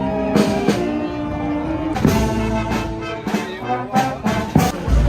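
Processional marching band playing: brass (trombones and trumpets) holding sustained chords over drum strikes.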